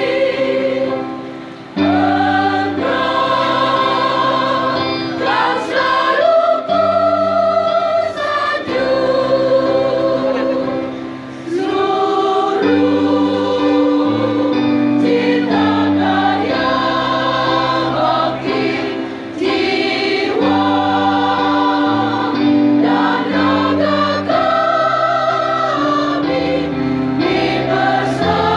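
A large choir, mostly women's voices, singing a regional anthem in sustained phrases, with short breaths between lines about a second and a half and eleven seconds in.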